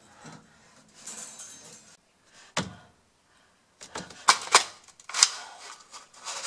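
Knocks and clicks of a hand rummaging along a high closet shelf, things on it shifting: one knock about two and a half seconds in, then a quick cluster of sharp clicks and knocks around four to five seconds.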